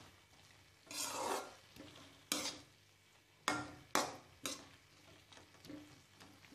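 Spatula stirring chopped bottle gourd in a speckled stone-coated pan. There is a longer scrape about a second in, then several short, sharp scrapes against the pan, and fainter ones near the end.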